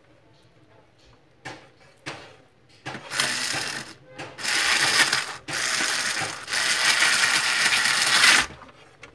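Screws being driven with a screwdriver to fasten the formatter board of an HP LaserJet 1320 printer. There are two brief sounds about one and a half and two seconds in, then four runs of one to two seconds each from about three seconds in until near the end.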